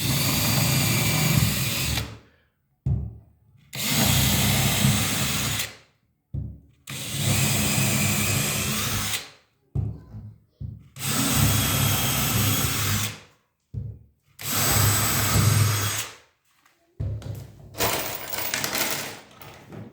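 Electric drill running in six bursts of about two seconds each, with short pauses between, working into a wooden floorboard to pull it down tight against the joist and cut down its squeak.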